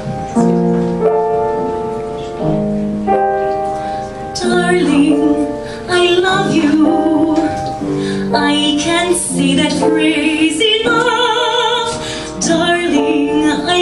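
Piano playing sustained chords as a song introduction, then about four and a half seconds in a woman's voice comes in, singing with vibrato over the piano accompaniment.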